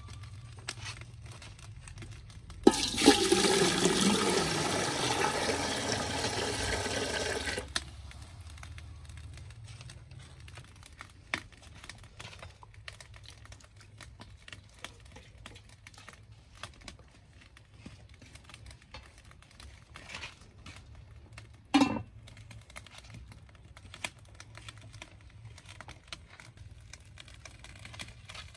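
Water poured out in a steady rush for about five seconds, starting and stopping abruptly; then quiet handling with scattered small clicks and one sharp knock about two-thirds of the way through.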